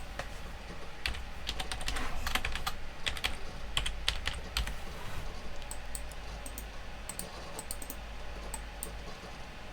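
Typing on a computer keyboard: irregular keystrokes, busiest in the first half and thinning out later, over a faint steady low hum.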